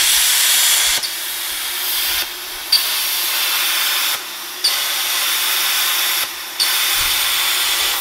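Plasma cutter cutting through a car's steel front cross member: a loud, steady hiss that cuts out briefly three times, each time starting again with a sharp pop.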